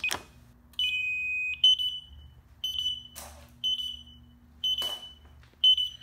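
Brinks Home Security alarm keypad beeping as the system is armed with the ON key. A key click comes first, then one longer high beep, then short high beeps about once a second. A couple more clicks come partway through.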